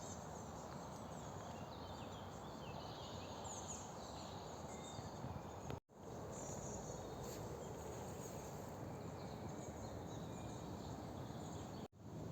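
Several songbirds chirping and trilling over a steady rustle of leaves in the wind. The sound drops out for a moment twice.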